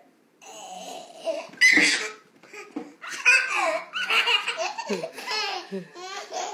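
A baby laughing hard in a string of bursts of giggles and belly laughs, with short breaths between them.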